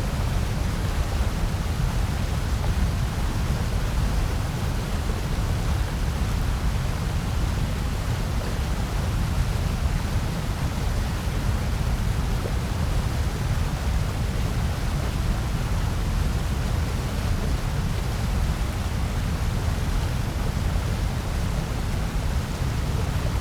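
Steady, unchanging electronically generated noise, white noise played as a continuous background track. It is heaviest in the deep low end, with a softer even hiss above.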